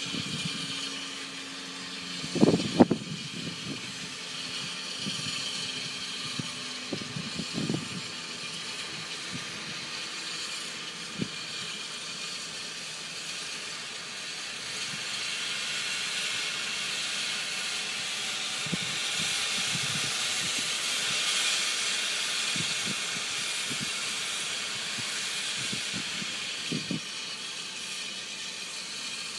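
Santa Fe 3751, a 4-8-4 steam locomotive, hissing steam steadily, the hiss swelling louder in the second half. A few short knocks sound over it, the loudest about two and a half seconds in.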